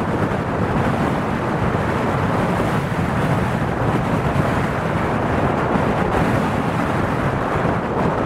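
Strong wind buffeting the microphone in a steady rush, over the rumble of a twin-engine wide-body jet airliner's engines at takeoff power on its takeoff roll.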